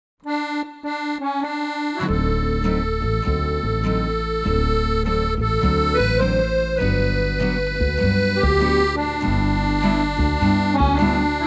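Background instrumental music: a lead melody plays alone at first, then about two seconds in a bass line and a steady beat join.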